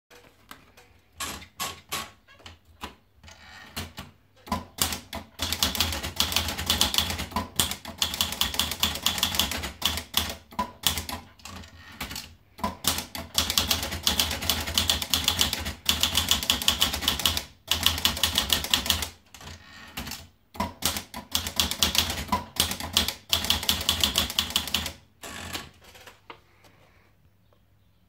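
Underwood 310 manual portable typewriter: a few scattered clicks while the paper is loaded, then long runs of fast typing with key strikes clattering several a second. The typing is broken by a few short pauses and stops about two seconds before the end.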